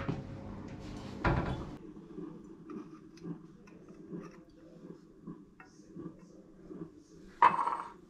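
Kitchen clatter of ceramic mugs and small items being handled and set down on a countertop: a louder knock about a second in, small clicks and knocks through the middle, and a ringing clink near the end.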